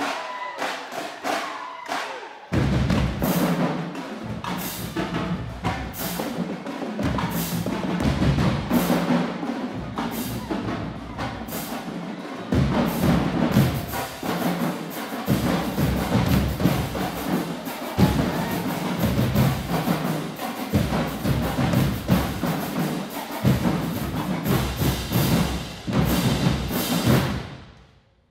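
Marching band playing loudly with drums to the fore: heavy bass-drum hits under sharp stick and rim strokes, kicking in about two and a half seconds in after a few scattered clicks, and stopping abruptly near the end.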